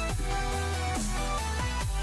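Electronic music with a steady bass line and repeated synth notes that slide down in pitch.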